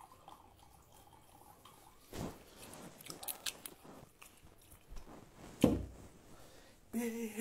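Rustling, scraping and small knocks from a phone being handled and carried, with one sharp knock about five and a half seconds in. Near the end a man starts humming a tune.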